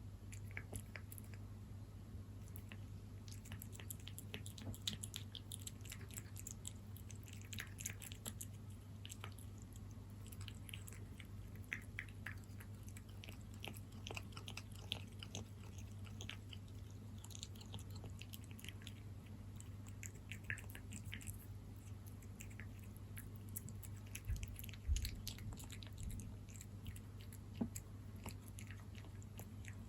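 A cat chewing soft, moist salmon wet cat food: many small wet clicks at an uneven pace. A steady low hum sits underneath, and there is one low thump about 25 seconds in.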